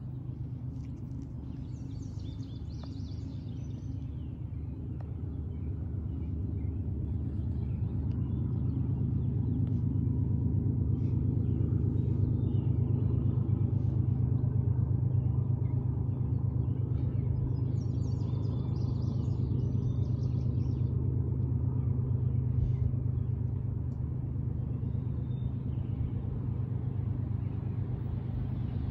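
A low engine rumble, swelling to its loudest about halfway through and then easing off, with birds chirping now and then.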